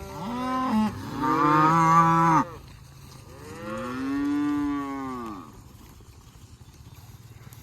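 Calves bawling for their mothers: three long calls, the second the loudest, the last rising and falling in pitch.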